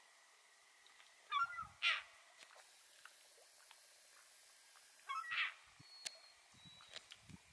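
Gull giving harsh, squawking calls: a quick stuttering run ending in one stronger call about two seconds in, then a single call after about five seconds.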